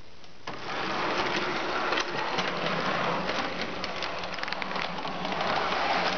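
Model electric train running on its track: a steady motor hum under a dense rattling clatter of wheels and clicks, starting abruptly about half a second in.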